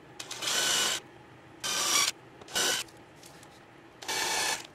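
Cordless drill boring 7/64-inch pilot holes into a boat's fiberglass gel coat: the motor whines in four short trigger bursts, each under a second, with pauses between them.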